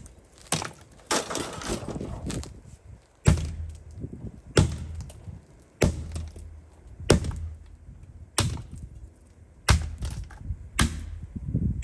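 A hammer striking the casing of an Untimaty cordless hammer drill, about nine heavy blows a little over a second apart, each a sharp crack with a dull thud under it. The drill holds up: really tough.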